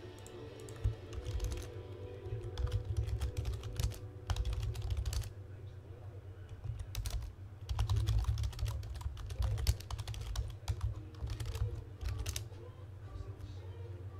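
Typing on a computer keyboard in several bursts of quick key clicks, with pauses between them, over a steady low hum.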